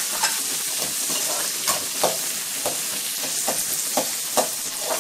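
Chopped onions and tempering sizzling in hot oil in a metal kadai, stirred with a perforated metal ladle that scrapes and clinks against the pan about seven times. The onions have just gone into the oil and are starting to fry.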